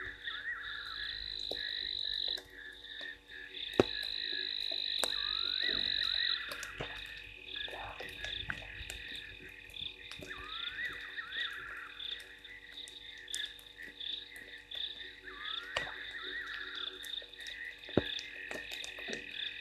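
A chorus of frogs calling at night: a high steady trill, repeated short rising calls every few seconds, and scattered clicks.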